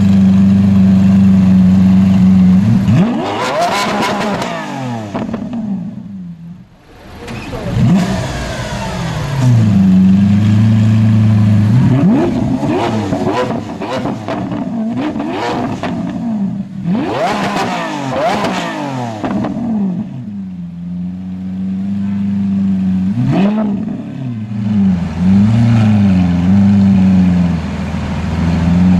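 Lamborghini Aventador Roadster's V12 with sports exhaust, holding a steady note between several bursts of revving where the pitch rises and falls sharply.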